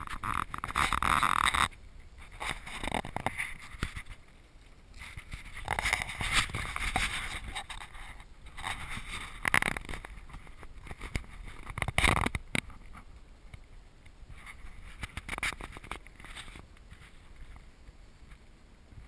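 Water lapping and splashing against a plastic kayak hull in irregular surges, with a sharp knock about twelve seconds in.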